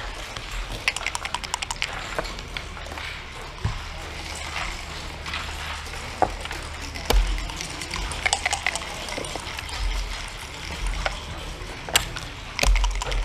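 Backgammon play on a wooden board: a quick rattle of dice about a second in, then scattered single clacks of checkers being set down on the board.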